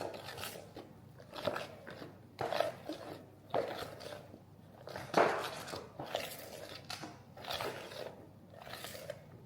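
A run of short, irregular crunching and handling noises, roughly one a second, like food being bitten and dishes being moved.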